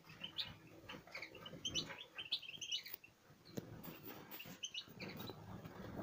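Caged small birds chirping in quick runs of short, high cheeps, mixed with rustling and knocks from handling near the cage.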